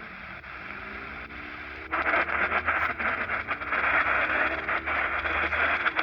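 Shortwave radio receiver hissing with static while being tuned, faint whistles gliding up in pitch. About two seconds in, the static jumps to a much louder, steady rush.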